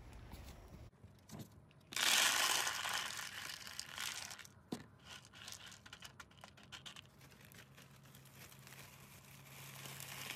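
Wood litter pellets poured into a plastic litter box, a loud rattling pour about two seconds in, then pellets shifting and clicking under a hand. A plastic zip-top bag of hay crinkles near the end.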